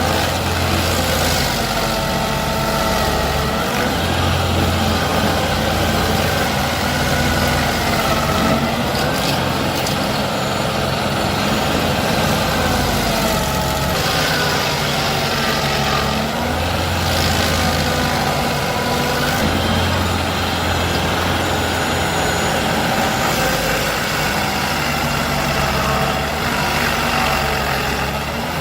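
Heavy engine of a stump-shredding machine running steadily, its pitch wavering up and down as it works.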